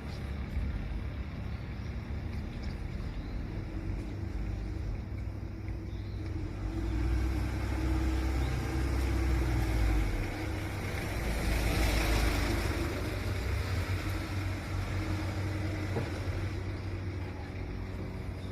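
A motor vehicle going past, its low engine rumble swelling in the middle and then fading away.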